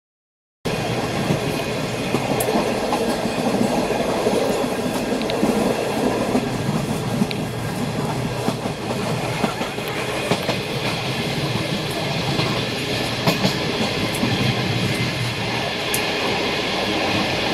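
Passenger train running along the track, heard from inside a coach: a steady rumble and rattle of the wheels on the rails with occasional sharp clicks. It starts abruptly about half a second in.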